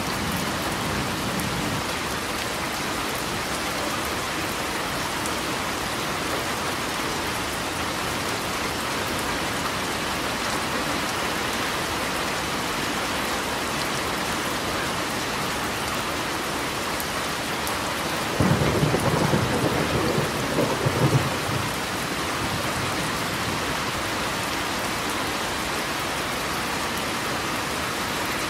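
Steady rainfall, with a single clap of thunder about two-thirds of the way through that rumbles for about three seconds before the rain alone carries on.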